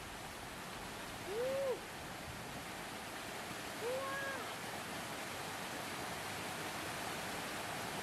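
Small waterfall and shallow stream rushing steadily over rocks. Twice, about one and a half and four seconds in, a voice gives a short exclamation that rises and falls in pitch.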